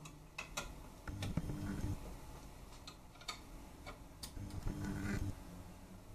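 Small irregular clicks and taps of the metal hooks on a Bos Model Claw model holder being adjusted by hand and with a small screwdriver. Twice, about a second in and near five seconds in, a short low hum sounds under the clicks.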